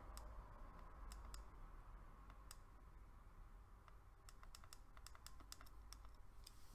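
Faint, quick clicks of the Koopor Primus 300W vape mod's buttons being pressed, stepping the wattage up to 250 W. The clicks come one at a time at first, then in a quicker run about four seconds in.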